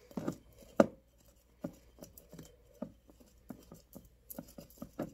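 Scattered light clicks and taps as a sprig of rosemary is pushed down into a glass mason jar packed with lemon and ginger pieces, with one sharper knock about a second in.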